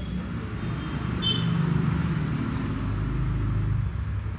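A steady low background rumble that swells a little about a second in and eases near the end, with a short high-pitched squeal about a second in.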